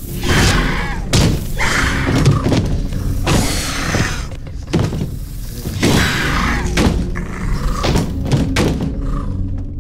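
A string of heavy thuds and crashes, about one a second, over tense film music.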